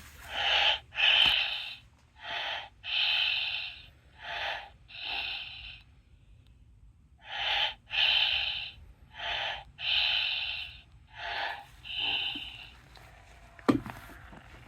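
Electronic baby doll making recorded breathing sounds, each an in-and-out pair of breaths: three pairs, a pause of about two seconds, then three more pairs. A sharp click comes near the end.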